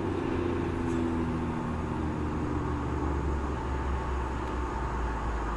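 A motor vehicle's engine running as a low hum, its pitch falling slowly, cutting off suddenly near the end.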